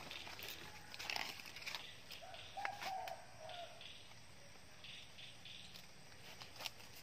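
Footsteps crunching through dry leaf litter and brushing against forest undergrowth, with scattered small crackles of twigs and leaves. A short faint call or whine comes about two and a half seconds in.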